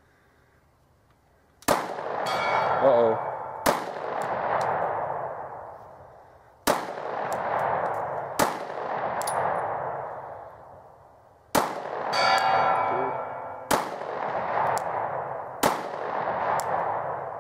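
Semi-automatic pistol fired slowly, seven shots a couple of seconds apart at steel targets 100 yards away, each shot followed by a long echo rolling away over the surrounding woods.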